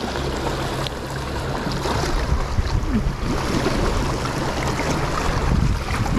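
Steady rushing noise of sea waves washing on the shore, with wind buffeting the microphone.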